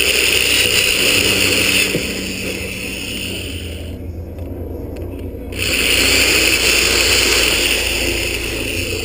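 Power drill running and cutting as a bolt hole is enlarged with a larger bit. The drill gives a steady high whine in two spells, easing off for a few seconds in the middle.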